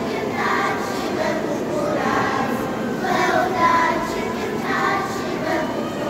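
Children's choir singing together in a large church.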